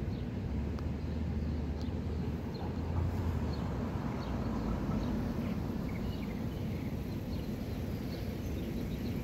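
Steady low rumble of a stationary NJ Transit commuter train idling, with scattered bird chirps.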